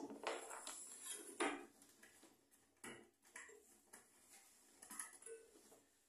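Faint metallic clinks and knocks of microwave oven parts being handled as the shorted magnetron is taken out, several in quick succession at first, then a few scattered ticks.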